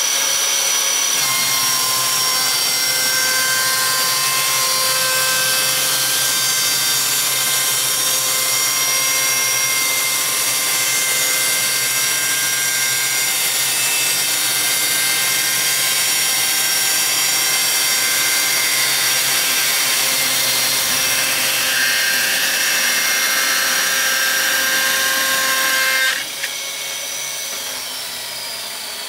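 Electric chainsaw mill on automatic feed ripping lengthwise along an oak log: a steady whine of motor and chain cutting through the wood. About 26 seconds in the cut stops abruptly and the saw winds down with a falling whine.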